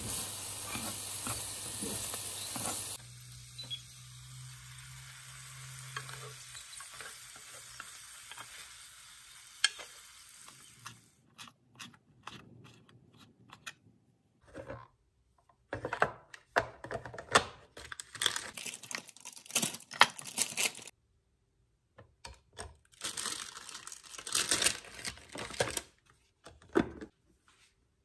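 Chicken pieces sizzling in a rectangular pan as their sauce reduces, stirred with chopsticks; loudest for the first few seconds, then quieter. After about ten seconds, a kitchen knife chops scallions on a wooden cutting board in three runs of quick taps.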